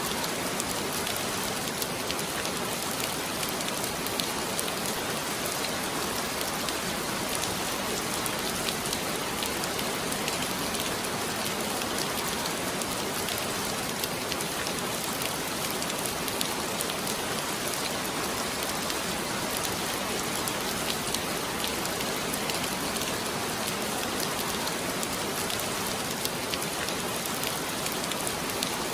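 Heavy rain falling steadily, an even hiss with many small drop ticks and no let-up.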